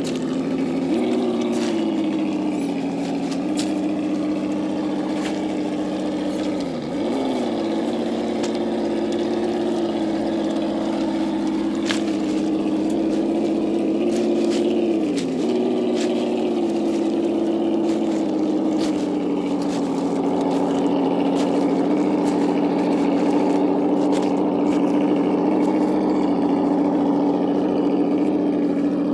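Simulated engine sound from a KYRC sound kit, played through the small speaker of a 1/8-scale RC Land Rover crawler. It runs steadily, and the revs dip and pick up again about seven and fifteen seconds in. A few sharp clicks sound over it.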